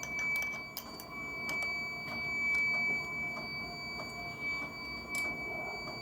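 Light metallic clicks and taps of tooling being handled on a milling machine setup, scattered irregularly, over a steady high-pitched whine.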